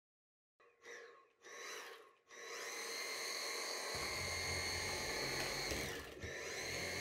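Cordless stick vacuum cleaner, its motor giving a few short starts and then running steadily with a high whine as it sucks up shaved beard hair from a countertop. A lower rumble joins about four seconds in as the cleaner head goes over the hair, and the motor dips briefly and spins back up about six seconds in.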